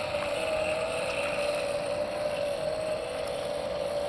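Electric motors spinning a fire tornado rig, running with a steady whine that wavers slightly in pitch, over the noise of lighter fluid burning in the pan.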